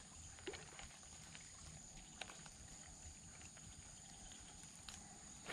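Near silence: faint outdoor ambience with a few faint, short clicks.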